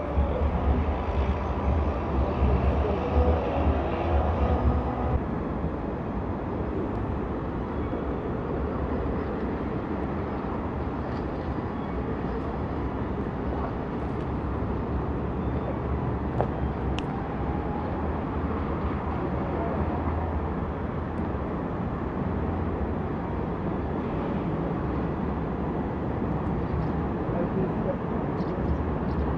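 Outdoor city ambience from a hilltop: wind buffeting the microphone as a low rumble, heavier for the first five seconds, over a steady wash of distant city traffic.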